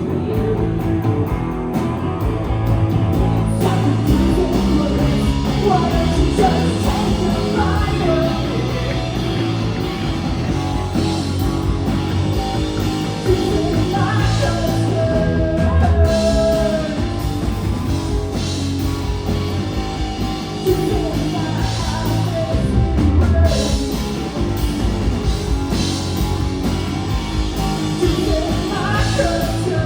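A rock band playing live, with guitar and a singing voice.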